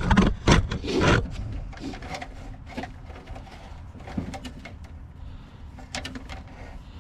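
Irregular knocks and clatter of tools and parts being handled during work on a truck's fuel lines, loudest in the first second or so, then fainter scattered clicks.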